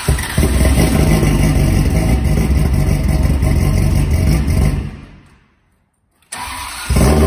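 Ferrari 360's freshly rebuilt V8 starting for the first time after a full rebuild: it catches and runs loud for about five seconds, then fades out. After about a second of silence it is heard again, settling into a steady idle near the end.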